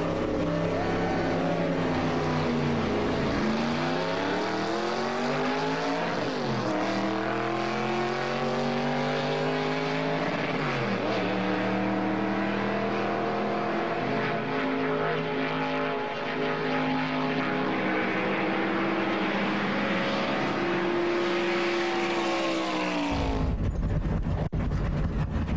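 NASCAR stock car's V8 engine accelerating hard through the gears of its manual gearbox. The pitch climbs, drops sharply at two upshifts, then holds high at speed and slowly eases off. Near the end the engine sound cuts to a low rumble.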